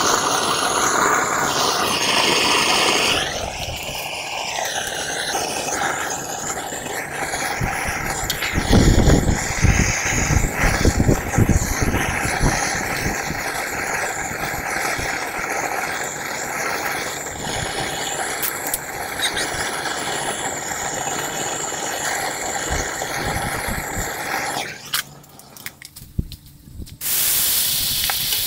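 Gas torch burner running with a steady hissing rush as it heats aluminium in a steel frying pan, with a few low thumps about nine to twelve seconds in. Near the end the sound drops away for a couple of seconds, then Coca-Cola poured onto the molten aluminium sets off a sudden loud sizzling hiss of steam.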